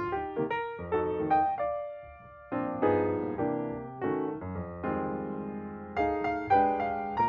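Background piano music: struck notes and chords that ring and fade.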